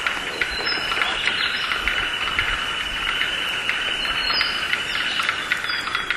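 Outdoor bird chorus: a steady, dense high chorus with scattered sharp clicks and a few brief, high whistled notes.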